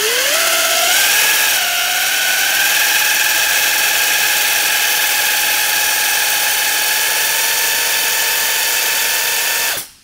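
Air-driven motor of a 3M Dynamic Mixing body filler gun running as it purges mixed filler and hardener out through the mixing tip. A whine that climbs in pitch over the first second or so, then holds steady over a hiss and cuts off suddenly just before the end.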